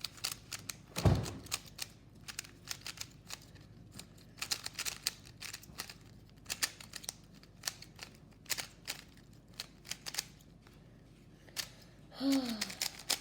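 Rubik's cube being turned quickly during a solve: irregular plastic clicks and clacks of the layers twisting. A loud thump about a second in, and a short falling vocal sound near the end.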